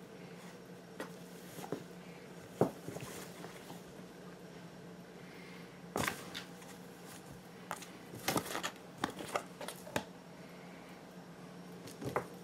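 Kittens scrambling in and against a cardboard box: scattered scratches, taps and rustles of paws and claws on cardboard. There is a sharp knock about two and a half seconds in, a burst of scratching around six seconds, and a busy run of it from about eight to ten seconds. A faint steady hum runs underneath.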